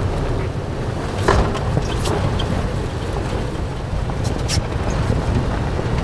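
Toyota 4Runner driving on a mountain trail: a steady low rumble of engine and tyres, with a few short sharp clicks and knocks, the loudest about a second in.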